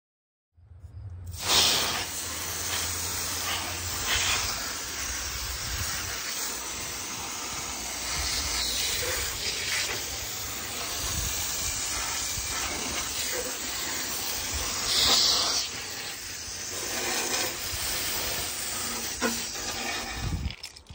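A steady hiss with a low rumble underneath, swelling louder twice: just after it begins and about three-quarters of the way through.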